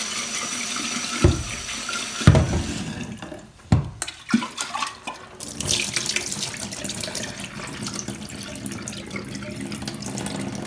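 Kitchen tap running into a stainless steel sink as a glass jar of sprouts is rinsed under it. There are a few sharp knocks between one and four seconds in, and the flow dips briefly just before the last of them.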